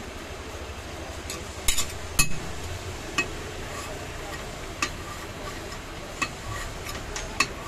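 Metal spatula spreading and patting masala topping across a dosa on a flat griddle: soft scraping with sharp clicks of the spatula striking the pan about once every second or so, the loudest about two seconds in.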